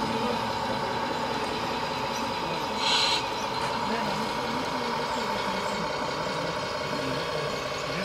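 Radio-controlled scale-model construction machines running with a steady whine while a model wheel loader works its bucket. A short hiss comes about three seconds in.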